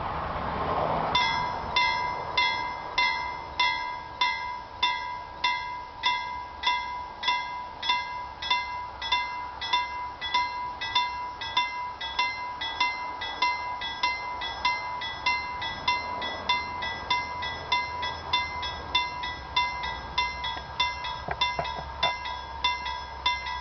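Level crossing warning bell starting up about a second in and ringing in rapid, regular strokes as the crossing closes for an approaching train.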